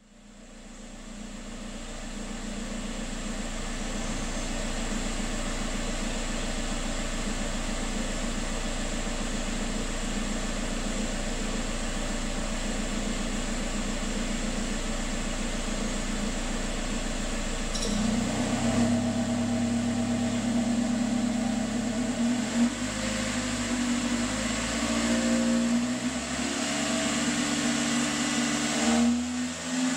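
Factory exhaust of a 2016 Toyota Corolla LE with its 2ZR-FE 1.8-litre four-cylinder, heard at the tailpipe: steady idle fading in at the start, then about two-thirds of the way through the revs begin a slow climb toward redline, the tone shifting and getting a little louder.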